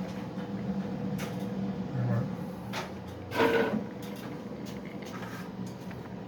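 Several knocks and a brief clatter from equipment being handled, loudest about three and a half seconds in, over a steady low hum.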